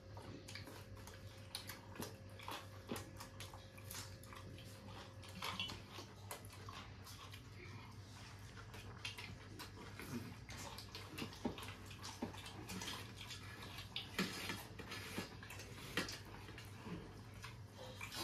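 Eating sounds: wet chewing and lip-smacking, with irregular short clicks, over a low steady hum.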